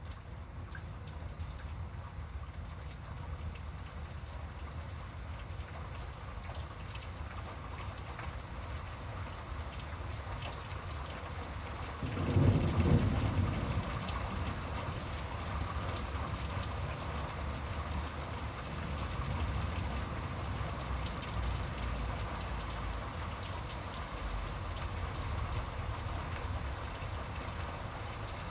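Steady rain during a thunderstorm, with one loud rumble of thunder about twelve seconds in that lasts about two seconds.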